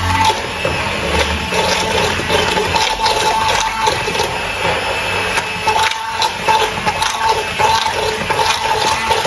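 Hand-held immersion blender running in a glass bowl, whisking curd and gram flour into a smooth, lump-free batter: a continuous wet churning over a faint motor whine.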